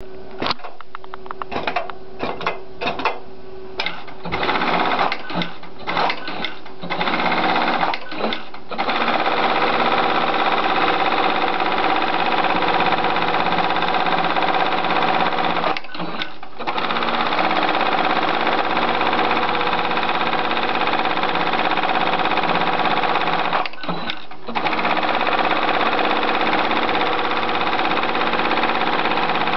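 Juki industrial programmable pattern sewing machine stitching a programmed pattern through fabric held in its clamp frame. Stop-start clicks and short bursts for the first several seconds, then steady fast stitching that pauses briefly twice.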